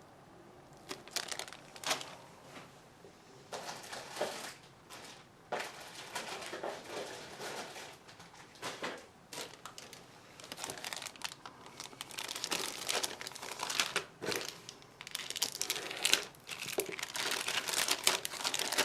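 Plastic bags holding model-kit sprues crinkling as they are handled. The crinkling comes off and on at first and runs almost without a break in the last few seconds.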